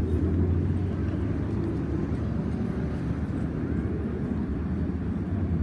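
Aircraft engines heard as a steady low rumble.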